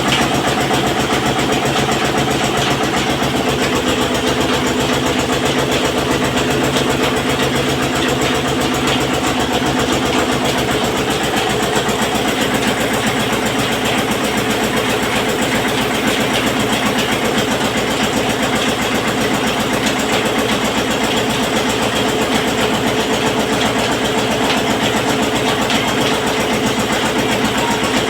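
Oil press machine running steadily, a loud continuous mechanical drone with a fast, even pulsing.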